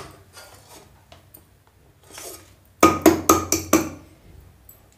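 A hand knocking on the base of an upturned aluminium cake pan set on a ceramic plate: five quick, sharp knocks in about a second, to loosen the baked cake out of the tin. A single knock of the pan against the plate comes first.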